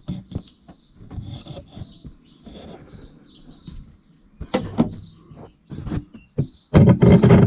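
Knocks, clicks and handling noise from hands and tools working at the tailgate handle's bolts and nuts, close to the microphone, with a loud burst of rustling and knocking near the end. Small birds chirp repeatedly in the background.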